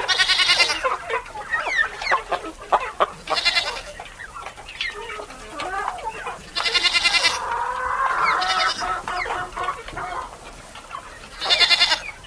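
Chickens clucking and chattering, broken by four loud, harsh squawking calls a few seconds apart.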